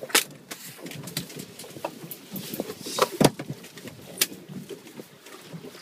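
A string of irregular knocks and clicks, the loudest about three seconds in, over a low background rumble.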